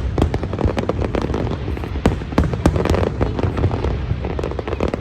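Fireworks going off in a dense barrage: many sharp cracks and bangs, several a second, over a constant rumble.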